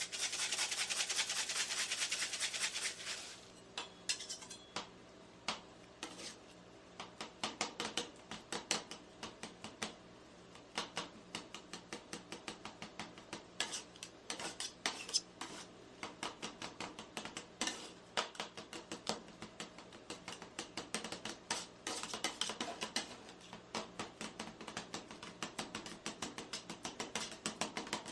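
Metal spatulas chopping and scraping on a rolled-ice-cream cold plate, quick irregular runs of sharp clanks and taps, several a second. It opens with a loud rushing noise for about three seconds.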